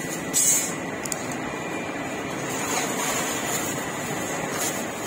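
Steady street background noise, likely traffic, with one short louder burst about half a second in.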